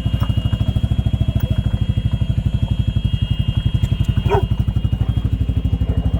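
Gas golf cart engine running with rapid, even firing pulses. It is labouring in soft mud. A short pitched squeak comes about four seconds in.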